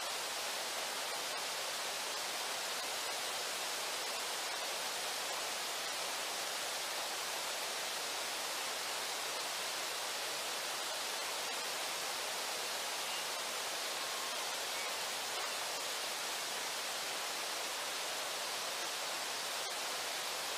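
Steady rushing of river water, an even hiss that does not change.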